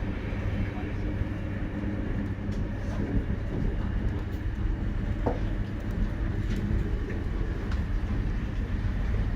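Electric commuter train running along the line, heard from inside the carriage: a steady rumble of wheels on rail with a low, even hum, and a short squeak about five seconds in.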